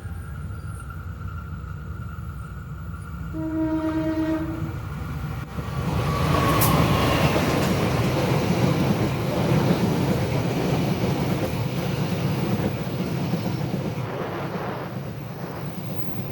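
A diesel locomotive's horn sounds once, briefly, about three seconds in; then a passenger train runs close past, its wheel and engine noise rising about six seconds in and continuing.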